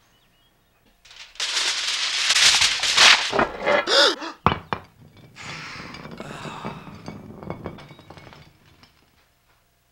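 A loud rush of noise with a cry in it, then a sharp thunk about four and a half seconds in. After it, a glass pickle jar rolls across wooden floorboards, the sound fading out near the end.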